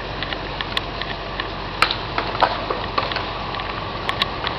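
Steady outdoor background hiss with scattered small clicks and knocks, the loudest about two seconds in.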